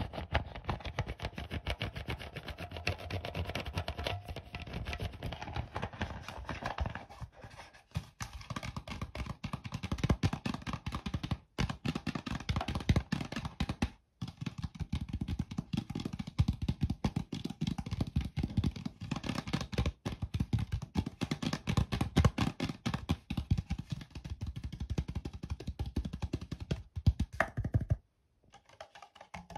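Fast, dense tapping and handling of a plastic soda bottle close to the microphone, in runs broken by brief pauses, with a short break near the end.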